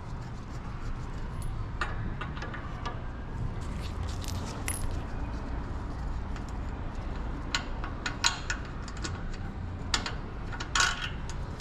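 Small metal clicks and clinks as the Tenere 700's OEM chain roller bolt is backed out by hand and the roller and its washers come off, with a few louder clinks in the second half. A low steady hum runs underneath.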